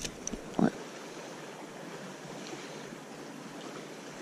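Steady low hiss of lake water and light wind around a kayak on open water.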